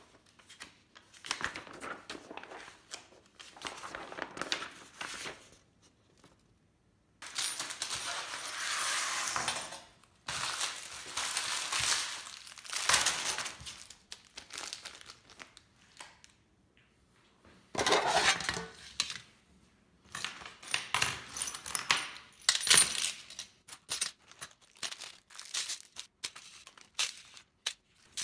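Plastic parts bags crinkling as they are handled and opened. Then small metal screws, nuts and ball bearings clink and clatter into a metal tray in irregular bursts of clicks.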